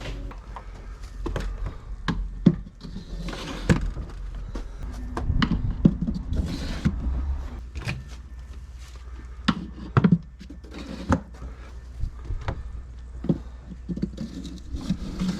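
Irregular knocks and clatter of metal smoker racks being handled and slid as fish fillets are loaded onto them, over a steady low hum.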